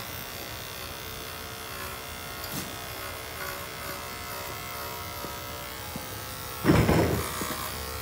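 Andis electric clippers with a #7 blade running steadily, buzzing as they trim the long hair around a goat's udder and backside. About seven seconds in, a brief loud noisy burst cuts in over the hum.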